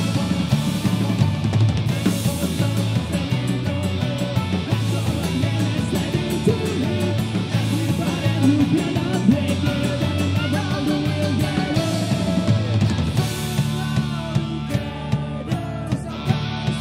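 Celtic punk band playing live: drum kit, bass and acoustic guitar under sung vocals. About thirteen seconds in, the full band drops back to a sparser, lighter accompaniment.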